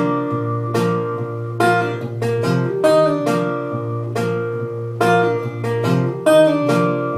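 Acoustic guitar playing an instrumental passage between sung lines, with picked notes and chords struck about once or twice a second and left ringing.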